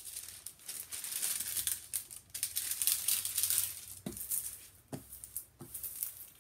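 Clear plastic film on a diamond painting canvas crinkling as it is pulled and smoothed by hand, with three soft thuds in the second half.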